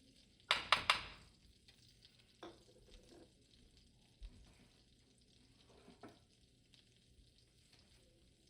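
Kitchen food-prep handling noises: three quick, sharp clatters about half a second in, then a few lighter knocks and rustles over a faint hiss.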